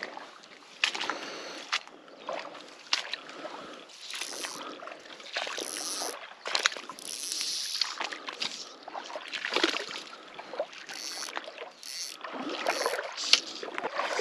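Shallow lake water sloshing and splashing around a wader's legs and feet in waterlogged grass, a string of irregular small splashes and swishes.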